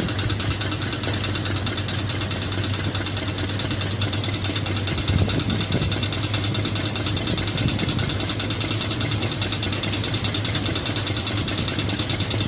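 Tractor diesel engine running steadily with an even low hum.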